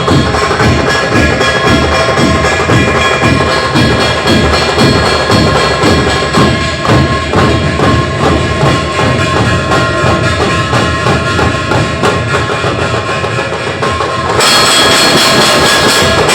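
Village percussion troupe (tafa) playing: deep drum beats in a steady rhythm of about two to three a second under continuous metallic ringing. About fourteen seconds in, it changes to a louder, denser, brighter passage.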